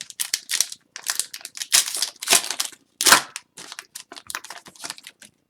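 Hockey card pack wrappers crinkling and crackling in irregular bursts as packs are torn open and the cards are handled.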